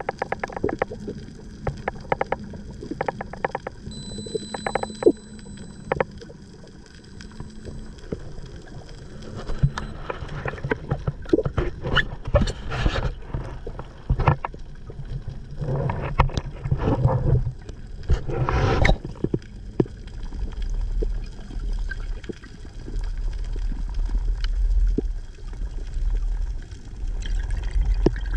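Underwater water noise picked up by a camera in its housing: scattered sharp clicks and ticks at first, then several gurgling rushes of water about twelve and sixteen to nineteen seconds in, and after that a steady low rumble.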